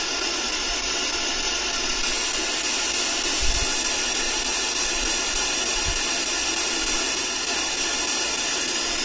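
Steady loud hiss like static, with two soft low bumps, one about a third of the way in and one about two thirds in.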